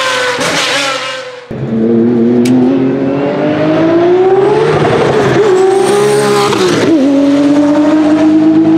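Porsche Type 962/70 2.9-litre turbocharged flat-six of a 1985 March 85G GTP racing car. A brief pass falling in pitch cuts off abruptly about one and a half seconds in; then the engine pulls hard, its pitch rising steadily under acceleration, drops at a gear change about seven seconds in, and climbs again as the car draws away.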